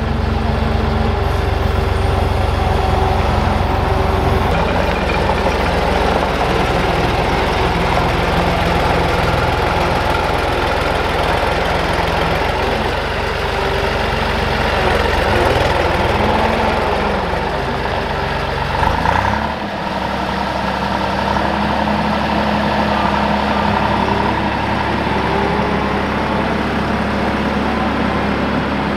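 Diesel skid-steer loader engine running and driving off. Its pitch wavers for a few seconds past the middle, then the deepest part of the hum drops away and it runs on steadily.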